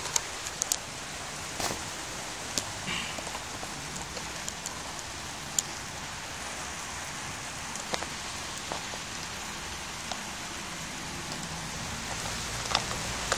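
Heavy thunderstorm rain pouring steadily, with scattered sharp ticks.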